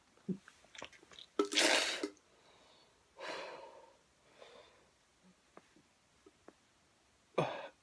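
A man gagging and breathing hard, his stomach upset by a garlic, chili and onion drink he has just swallowed. A sharp, forceful exhale comes about two seconds in, then softer heavy breaths, a few small clicks, and another short burst near the end.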